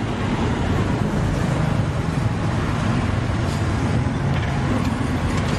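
Street traffic noise: a vehicle engine running steadily close by, with a low hum under a general noisy din.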